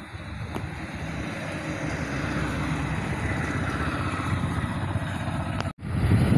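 Motor vehicle running along a road: steady engine and road rumble that grows louder, cutting out for an instant near the end and coming back louder.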